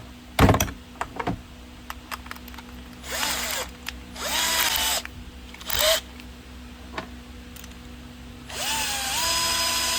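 Bosch GSB 120 cordless drill running in short bursts, turning a rivet nut adapter to set an M10 rivet nut. Each burst's motor whine rises and then holds steady, with a longer run near the end and a few clicks at the start.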